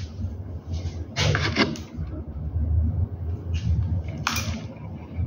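Plastic parts of a vertical-blind headrail being handled and slid during assembly: a few short clattering, sliding noises, the loudest about a second in and another about four seconds in, over a steady low hum.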